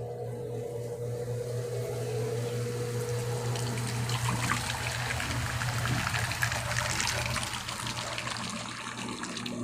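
Electrolux 11 kg washing machine with water pouring and splashing into it, over a steady low hum. The water grows louder from about two seconds in and eases off near the end.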